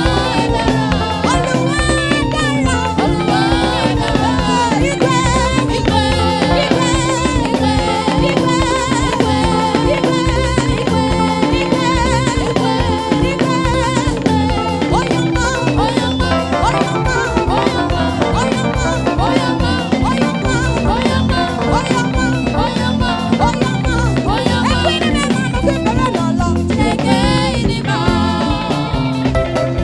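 Church praise music with drums and percussion keeping a steady beat.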